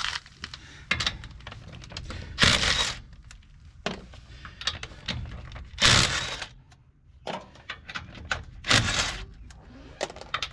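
Metal parts and hand tools clinking and knocking, with four short noisy bursts spread about three seconds apart.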